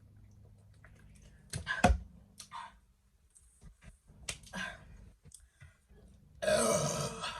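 A woman breaking off from chugging a carbonated soda: a breath and a sharp knock about two seconds in, a few softer breaths and clicks, then a loud, rough burp lasting about a second near the end.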